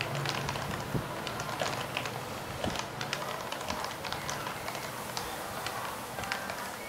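Typing on a Topre-switch keyboard: a steady run of irregular key strokes with soft, muted clicks.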